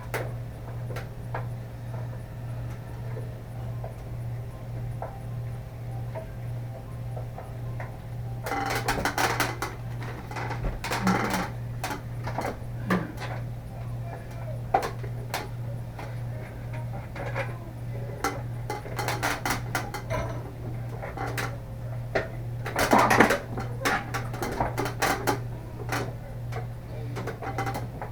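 Small metal parts clinking and clattering in irregular bursts as a light fixture is handled and fitted, over a steady low hum.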